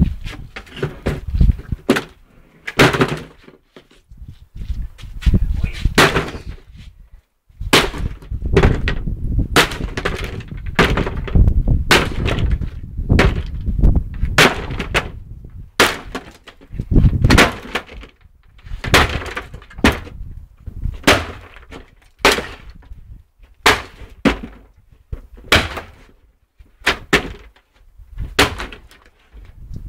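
Wooden fence boards cracking and splintering under repeated heavy stamps from a boot: an irregular string of sharp cracks and thuds, about one or two a second, with a denser stretch of crunching wood partway through.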